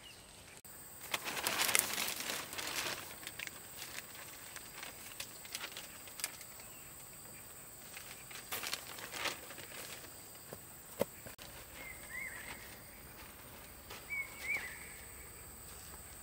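Rustling and crackling of dry material, loudest a second or two in, with scattered sharp snaps. Three short chirps come near the end.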